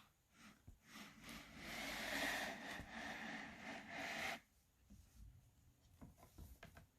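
Pages of a board sound book rubbing and scraping as they are handled and turned, a rustle lasting about three seconds, followed by a few light clicks.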